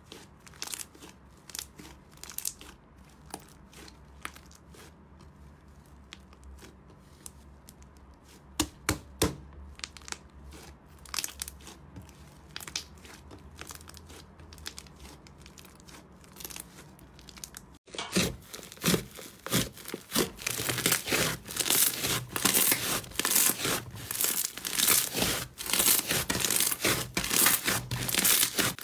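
Hands squeezing and kneading thick white slime, giving soft, scattered sticky pops and crackles. About 18 seconds in it changes to much louder, dense crackling and tearing as a fluffy, fibrous slime is stretched and pulled apart.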